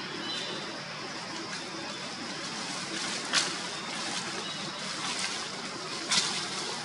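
Steady outdoor background hiss, with two brief, sharp, high-pitched crackles about three and six seconds in.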